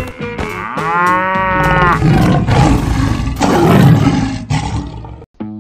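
Cartoon animal sound effects: a drawn-out cow moo that rises and falls in pitch, then two loud lion roars.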